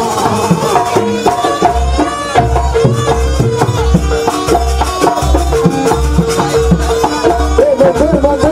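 Live Javanese jaranan music: a melody sliding between notes over a held tone, with hand drums, and an even low drum beat of about two strokes a second that comes in about two seconds in.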